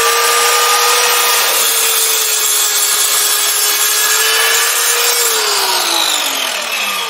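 Electric miter saw running and cutting through a wooden board: a steady motor whine with the rasp of the blade in the wood. About five seconds in the trigger is released and the whine falls in pitch as the blade spins down.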